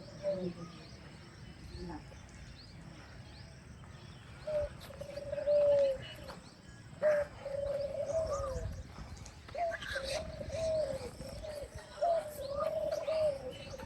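Doves cooing in a run of repeated low, arching notes that start about a third of the way in and continue to the end, over small birds chirping high and faint throughout.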